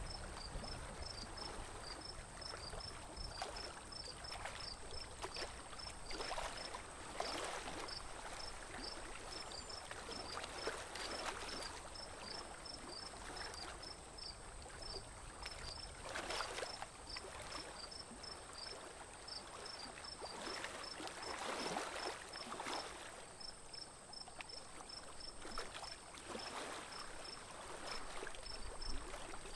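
Water swishing and lapping around a small wooden boat moving across a lake, in soft surges every second or two, with an insect chirping steadily at about three chirps a second above it.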